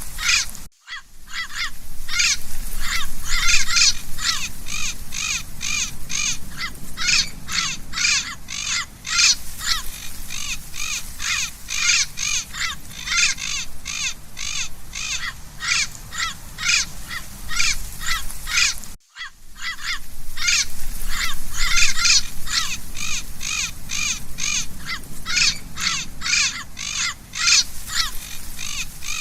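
Parrot squawking in a rapid, unbroken series of harsh calls, about three a second, broken by two brief silent gaps, one about a second in and one about two-thirds of the way through.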